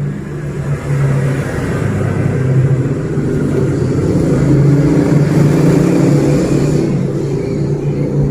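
A motor or engine running steadily, its pitch stepping slightly up and down and growing louder over the first few seconds.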